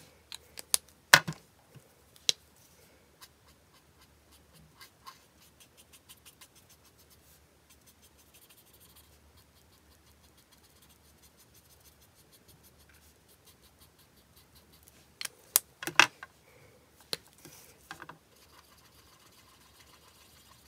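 Ohuhu alcohol marker nib stroking and scratching on white card stock, with sharp plastic clicks as the markers are handled, loudest about a second in and again in a cluster around fifteen to eighteen seconds.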